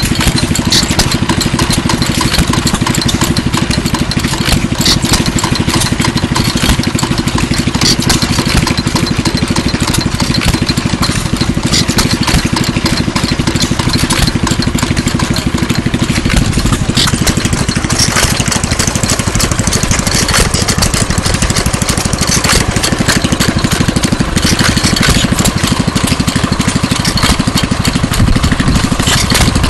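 Antique stationary gas engine with heavy spoked flywheels running steadily, its firing making a rapid, even beat that never stops.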